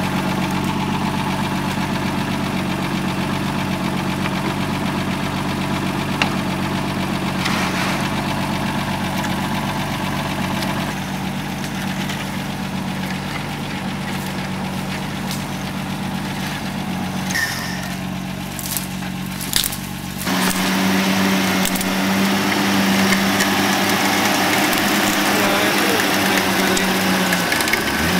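Off-road vehicle engine idling steadily, with a few short clicks; about 20 seconds in it changes abruptly to a louder, higher engine note.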